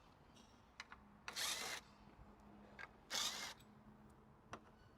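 Two short bursts of a small cordless power driver spinning, undoing the 10 mm bolts that hold the grille, with a few small clicks of tool and bolt between.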